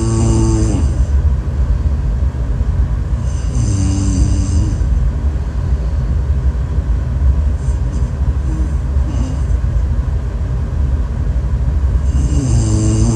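Heavy snoring: a steady deep rumble underneath, with a pitched, whistling snore breath about every four seconds.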